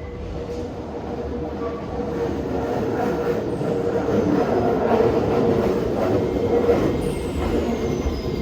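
Nankai Koya Line train running on the rails: a loud, steady rumble with a constant hum, and two faint high wheel squeals that glide downward, one around the middle and one near the end.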